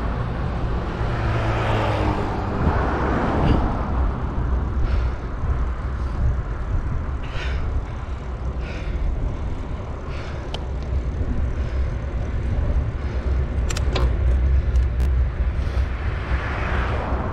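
Wind rumbling on the microphone during a bicycle ride, with cars passing by on the road at the start and again near the end. A few short sharp clicks come in the later part.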